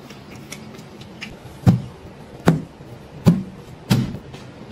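Four heavy, dull thuds about three-quarters of a second apart: raw pork elbows being set down one after another on a stainless steel table.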